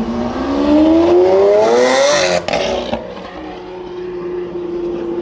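Straight-piped, decatted V12 of a DMC Lamborghini Aventador LP900-4 accelerating hard, its pitch rising steadily for about two seconds. It breaks off sharply with a crack about two and a half seconds in, as at an upshift, then carries on at a lower, steadier and quieter pitch as the car pulls away.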